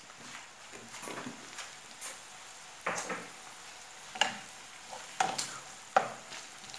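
Chopped red onion softening in olive oil in a non-stick frying pan with a quiet sizzle, while a wooden spatula stirs and scrapes it in several short strokes.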